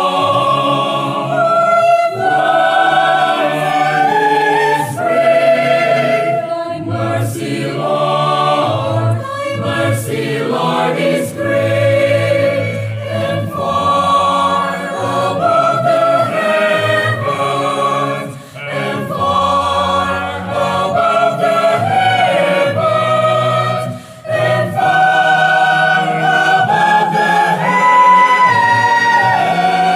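Mixed choir of sopranos, altos, tenors and basses singing a sacred anthem in English in full harmony, on the words "the righteous to fall" and "and far above the Heaven", with short breaks between phrases.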